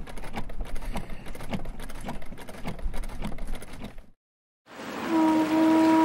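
Sailrite sewing machine stitching sail cloth, a rapid even clatter of stitches that cuts off about four seconds in. After a brief silence a ship's horn starts a steady, loud blast near the end.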